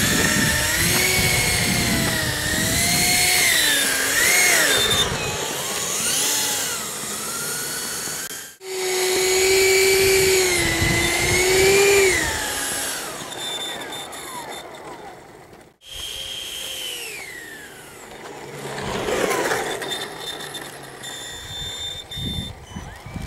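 Electric ducted fan of a homemade foamboard RC jet whining as it taxis, its pitch rising and falling with the throttle. The whine breaks off abruptly twice and grows fainter near the end as the jet moves away.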